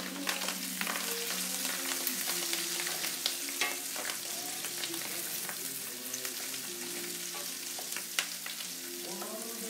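Celery, shallots and herbs sizzling in hot oil in a stainless steel sauté pan, stirred with a wooden spoon that clicks against the pan now and then.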